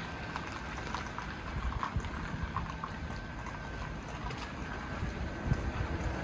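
Outdoor street ambience: a steady low rumble of wind buffeting the phone microphone, with a few faint scattered clicks and a faint steady high tone.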